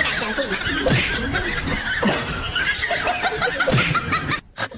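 People laughing, with quick repeated chuckles, breaking off suddenly near the end.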